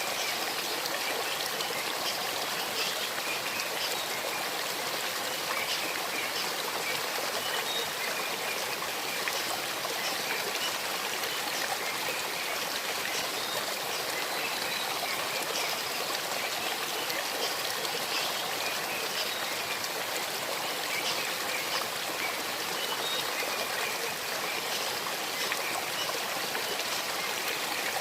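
Shallow stream babbling steadily over stones, an even rushing with small trickles and splashes dotted through it.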